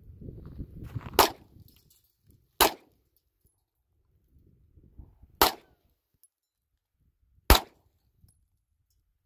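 Handgun fired four times in unevenly spaced single shots, each a sharp crack with a short tail.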